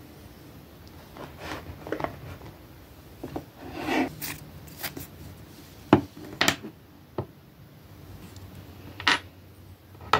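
Small objects being handled and set down on a wooden desk: scattered taps and clicks of plastic bottles and tools, with a brief rustle, and the sharpest knock about six seconds in.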